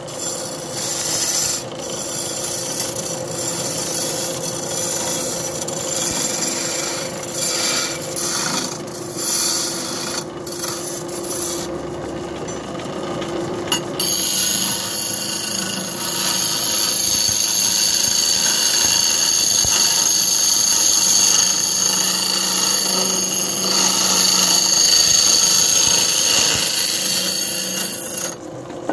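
Hand-held chisel cutting a spinning wood blank on a motor-driven wood lathe: a continuous scraping, shaving noise over a steady hum. The cutting noise drops away briefly about halfway through, then comes back louder and steadier.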